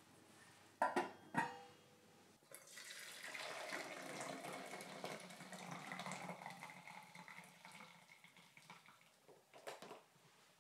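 Two sharp metallic clanks with a brief ring, a lid set on a stainless saucepan. Then brewed tea is poured from the saucepan through a mesh strainer into a jug: a steady splashing stream for about six seconds that thins out, with a few light clicks near the end.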